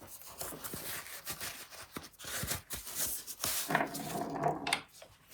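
A hand file scraping across a steel screwdriver bit in quick, irregular strokes, taking its hex shank down toward flat.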